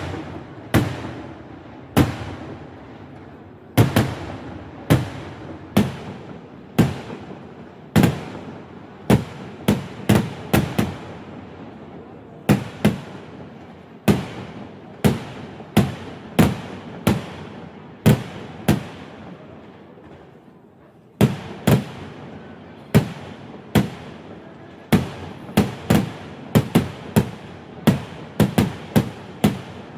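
Fireworks going off: a string of loud single bangs, each with a short echoing tail, coming about once a second, with a lull of about two seconds past the middle and faster, closer-spaced bangs near the end.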